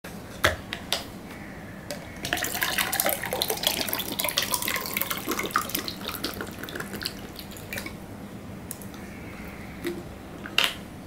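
Water poured from a plastic bottle into a drinking glass, running for about five seconds. A few clicks of the bottle and glass being handled come before it, and a sharp knock near the end as the glass is set on the table.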